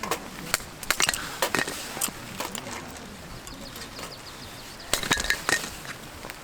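Scattered sharp clicks and knocks of objects being handled, in a cluster near the start and another about five seconds in.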